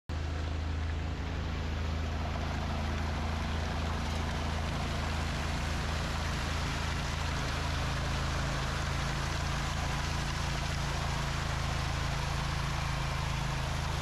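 Construction machinery engines running with a steady low drone and an even hiss over it, unchanged throughout.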